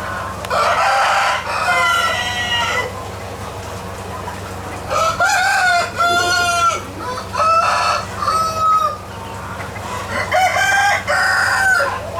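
Roosters crowing repeatedly, about four long crows, some overlapping, among chickens clucking, with a steady low hum underneath.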